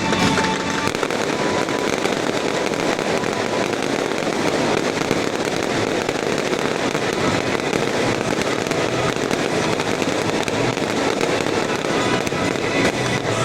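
Post-game victory fireworks display going off steadily, a dense run of overlapping pops and crackles.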